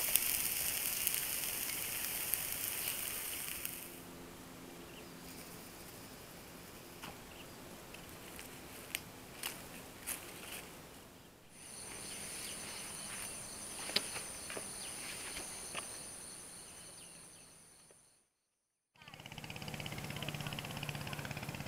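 Chicken sizzling and crackling over a charcoal grill for the first few seconds. Then quiet outdoor ambience with scattered clicks and a steady high whine, broken by a second of silence. Near the end, a small boat's outboard motor runs with a rapid buzz.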